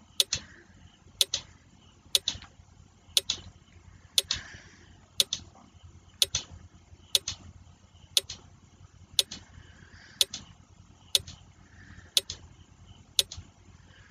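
Countdown timer sound effect ticking, about one sharp tick a second, marking the time allowed to answer a quiz question.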